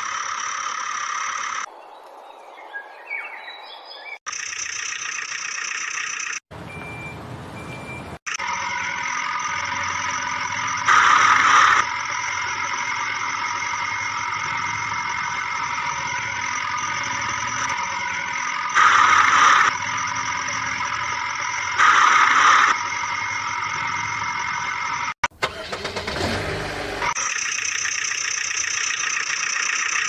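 Backhoe loader engine running sound, a steady hum with a whine. It is chopped off and restarted abruptly several times and swells louder three times for a moment.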